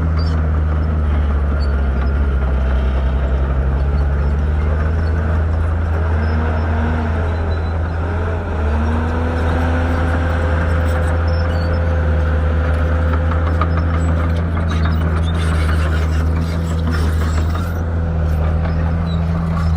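Shantui bulldozer's diesel engine running steadily, with a wavering higher whine over it partway through.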